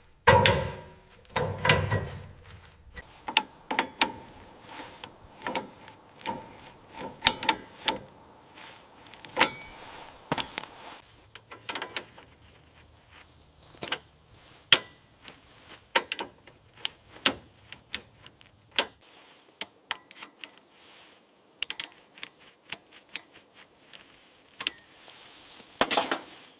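Workshop handling sounds: irregular sharp clicks and taps of tools and metal parts, with a few heavier knocks in the first couple of seconds.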